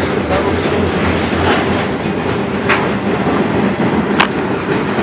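Double-stack intermodal freight train's cars rolling across a steel trestle: a steady rumble and rattle of wheels on the rails. Two brief sharp clicks come a little past halfway and near the end.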